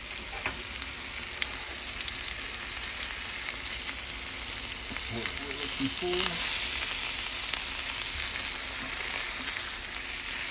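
Chicken breasts sizzling as they sear in a hot pan, a steady frying hiss with scattered pops and crackles of spitting fat; the sizzle grows a little louder about six seconds in.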